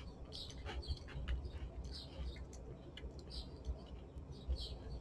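A mouthful of honey nut toasted oat cereal being chewed, a run of irregular soft crunches and clicks.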